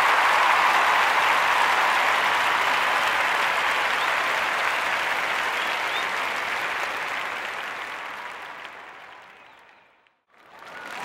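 A crowd applauding, a dense steady clatter of clapping. Near the end it fades away to near silence, then swells back up.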